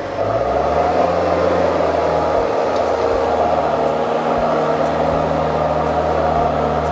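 Engine of a JLG 660SJ boom lift speeding up just after the start, then running steadily under load as the machine drives and the boom rises.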